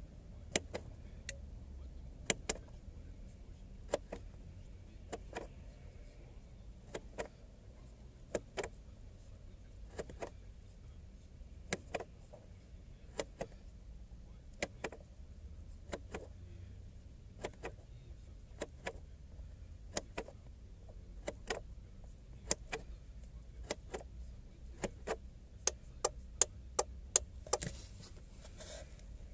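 Trip odometer button on a Ford Escape instrument cluster clicking, pressed repeatedly about once a second to step through the cluster's built-in self-test. A quicker run of louder clicks comes near the end.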